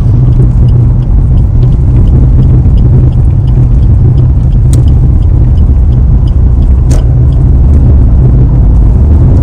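Steady low rumble of a car's engine and tyres, heard inside the cabin while it drives at road speed. A faint quick ticking runs over it, and there are two short sharp clicks, about five and seven seconds in.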